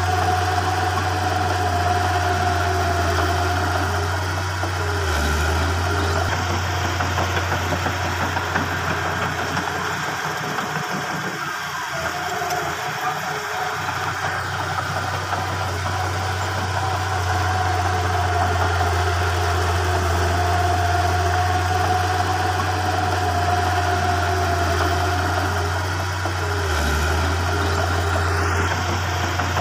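Heavy diesel engines of a crawler bulldozer and a dump truck running steadily as the dozer pushes fill soil, with a thin steady whine that comes and goes.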